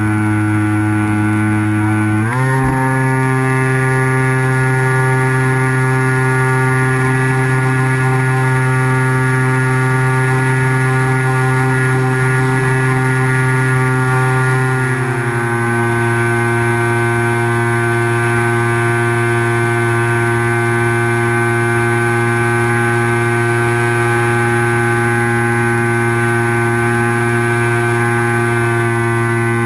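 Electric pusher motor and propeller of an X8 flying wing running steadily under throttle, a loud buzzing whine. Its pitch jumps up about two seconds in, then drops a little about halfway through and holds.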